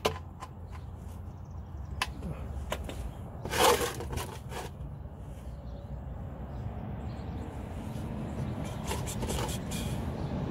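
A few scattered sharp clicks and taps of a socket ratchet loosening the Ford Escape's oil pan drain plug, over a steady low hum, with one louder short burst about three and a half seconds in.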